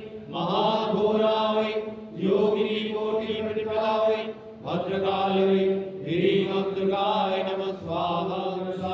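Male voices chanting Sanskrit homa mantras in long, steady phrases with short breaks between them.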